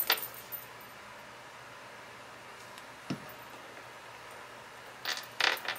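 Paper and card being handled on a craft table: a short rustle at the start and a cluster of rustles near the end as the paper tag is flipped over, over a faint steady hiss.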